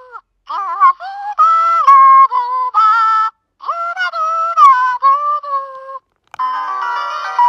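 Hatchimals Surprise Peacat toy singing a short tune in its high-pitched electronic voice through its small speaker, in held notes with brief pauses between phrases. About six and a half seconds in, a chiming jingle starts.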